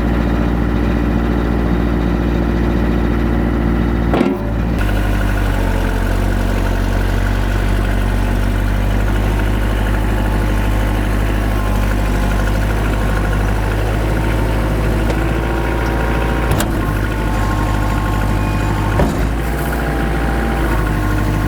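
Kubota L45 tractor loader backhoe's 45-horsepower diesel engine running steadily. Its note shifts about four seconds in, and there are a few short knocks later on.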